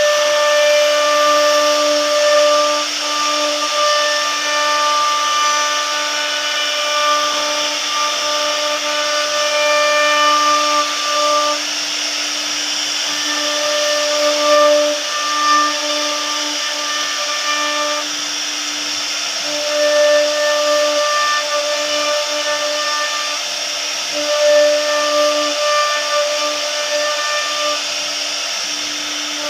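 CNC router spindle running at a steady high pitch while its bit carves a door panel, with a harsher cutting whine that cuts in and out every few seconds as the bit works through the pattern.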